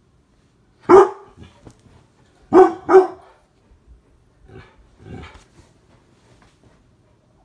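Mastiff barking: one loud bark about a second in, two quick barks close together a couple of seconds later, then two fainter barks.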